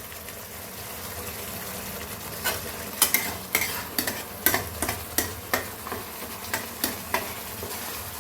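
Boal fish pieces sizzling in a kadai of coriander, garlic and green chilli paste, a steady hiss. From about two and a half seconds in, a utensil gives a quick run of sharp taps and scrapes against the pan as the fish is worked into the gravy.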